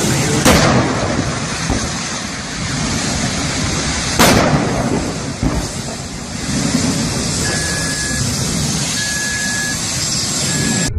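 Explosions from a burning crashed vehicle: two loud bangs about four seconds apart, the second followed by a smaller pop. Near the end a car alarm beeps three times in short steady tones.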